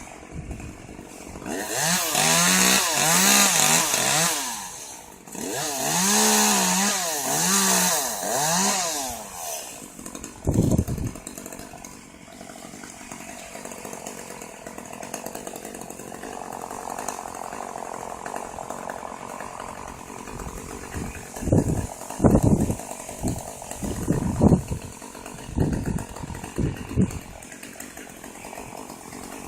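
Chainsaw running in two revved bursts of a few seconds each, its pitch rising and falling under load. A quieter stretch follows, with a thump and then several sharp knocks near the end.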